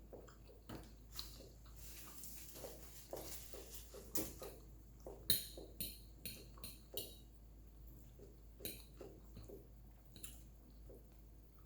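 Faint close-up eating sounds: a person chewing and gnawing meat off a rib bone, with scattered wet mouth clicks and smacks, a quick run of them in the middle.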